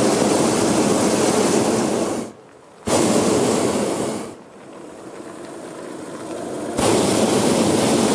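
Hot-air balloon propane burner firing in loud blasts that start and stop abruptly. One blast stops about two seconds in, a shorter one follows about a second later, and another starts near the end.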